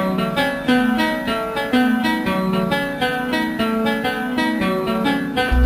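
Dance music led by a fast plucked guitar line, short notes following each other in a quick even rhythm. A heavy bass thump comes in just before the end.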